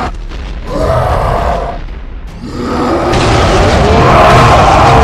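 Cartoon explosion sound effect: a boom with a steady low rumble, growing louder about two and a half seconds in, with shifting pitched sounds over it.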